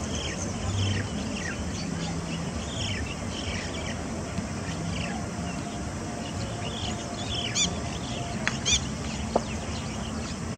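Small songbirds chirping repeatedly over steady background noise: many short falling chirps, with two louder calls about three-quarters of the way in and a single sharp tick near the end.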